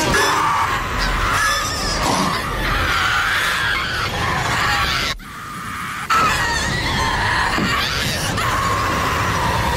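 Loud, harsh, distorted shrieking in horror-film style, like a demonic scream. It breaks off about five seconds in and cuts back in suddenly a second later.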